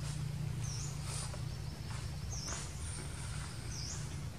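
A small bird's short high chirp, dipping then rising in pitch, given three times about a second and a half apart over a steady low rumble.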